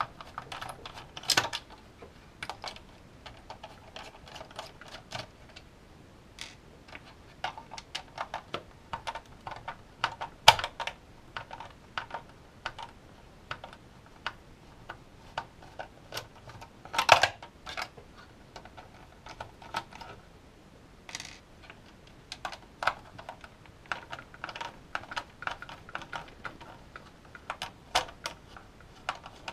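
Screwdriver turning screws out of a plastic dehumidifier casing, with the case being handled: a run of irregular small clicks and scrapes, with louder knocks about ten seconds in and again about seventeen seconds in.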